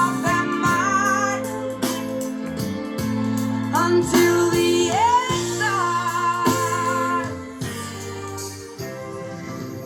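Music with a singing voice over sustained chords, played through a Phonic Versatap 30 speaker for a sound test; it gets quieter over the last few seconds.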